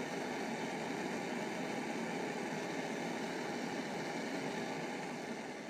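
Gas blowtorch flame hissing steadily as it heats the joint for silver brazing; the hiss fades out near the end.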